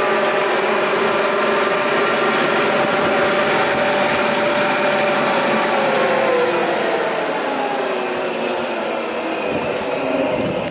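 Butfering 240 long-belt sander running steadily, then switched off at its rotary switch about halfway through: its motor and belt coast down, the tones sliding lower in pitch and the sound getting somewhat quieter.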